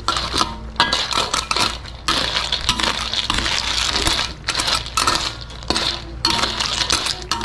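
A metal spoon stirring freshwater snails in their shells through a coconut-milk gravy in a pan. The shells clink against the spoon and the pan in quick, irregular clicks.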